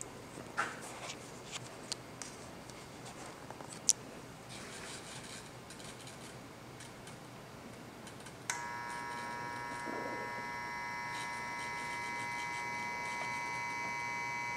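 Quiet room with a few faint clicks, then about eight and a half seconds in a click and an LED bulb starts a steady high-pitched electrical buzz made of several tones at once, which keeps on without change.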